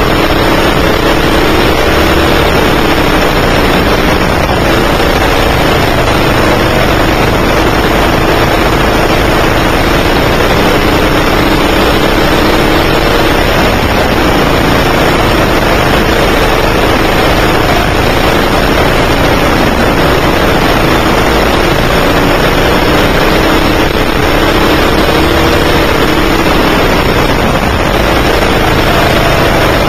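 A 9 hp go-kart engine running hard, heard from on board, its pitch rising and falling again and again as the kart speeds up on the straights and slows for corners. It runs over a constant rushing noise.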